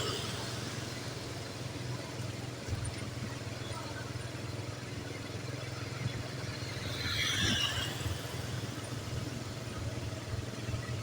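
Roadside traffic: a steady low engine hum, with one brief high squeal about seven seconds in as a vehicle goes by.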